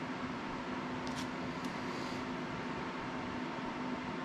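Steady hum and hiss of a fan running, with a few faint light clicks of small parts being handled between one and two seconds in.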